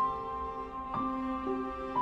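Slow, gentle background music of held notes, with the melody moving to a new note about once a second.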